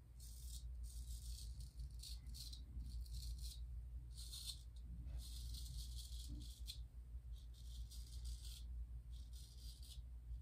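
Straight razor (Gold Dollar 208) scraping through lathered stubble on the neck and chin in a series of short strokes, about nine rasps with brief gaps between them, over a steady low hum.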